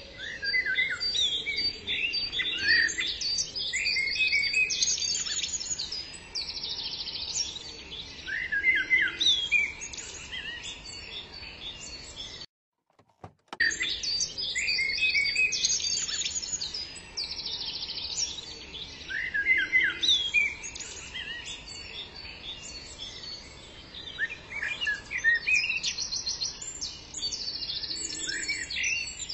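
Birdsong ambience: many small birds chirping and trilling in quick, overlapping calls over a faint steady background hiss. It cuts out for about a second near the middle, then carries on.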